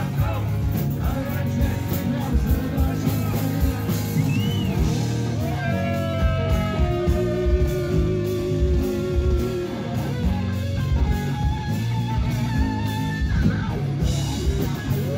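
Rock-style band music with guitar, carried by long held melody notes, one of them wavering, over a full accompaniment.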